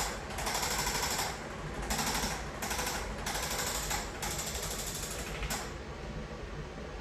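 Handheld percussive treatment device, a massage gun or a rapid-fire adjusting instrument, running on the patient's back. It fires rapid strikes in repeated bursts of about a second each, with short pauses between them.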